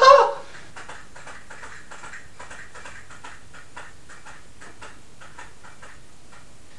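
A brief burst of voice right at the start, then faint light clicks or ticks, a few a second and somewhat uneven, which stop about five and a half seconds in.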